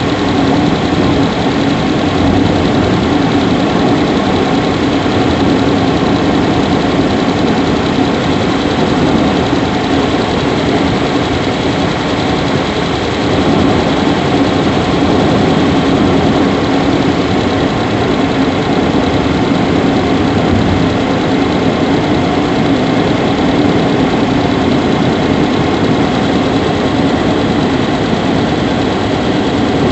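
Subaru Levorg 1.6GT-S's turbocharged 1.6-litre flat-four idling steadily, with faint steady high tones above the engine hum. The owner is chasing a squeaking 'kyuri' noise from the engine compartment that grows louder as the engine runs.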